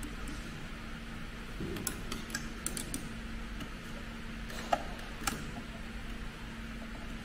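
Scattered light metallic clicks and ticks as the needle of a heavy-duty FIBC big bag sewing machine is threaded by hand, over a steady low hum. The two sharpest clicks come a little past halfway through.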